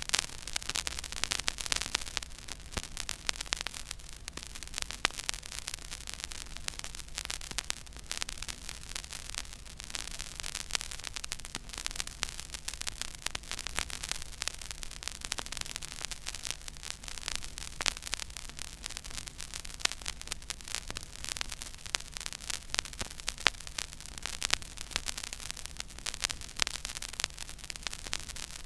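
Surface noise of a 12-inch 33 1/3 rpm vinyl record playing a silent groove: dense, irregular crackle and pops over a steady hiss, with a low hum underneath.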